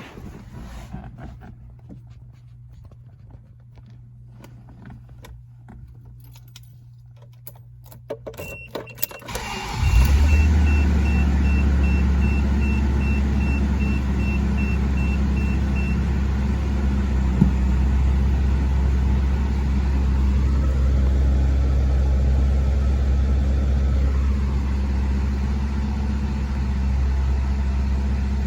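1985 Toyota Celica Supra's inline-six engine cold-started: keys and ignition clicks, a brief crank, and the engine catches about ten seconds in, then settles into a loud, steady cold idle. A high warning chime beeps repeatedly for several seconds as it starts.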